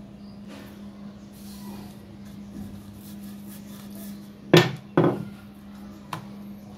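Wooden rolling pin knocked down on a marble counter twice in quick succession, about four and a half seconds in, with a lighter tap a second later, over a steady low hum.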